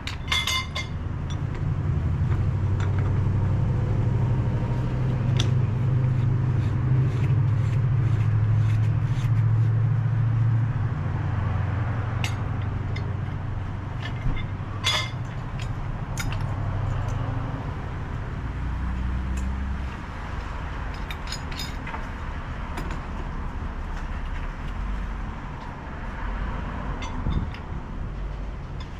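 A machine running with a low rumble, loudest in the first half and easing off after about 17 seconds, with scattered sharp clicks and taps.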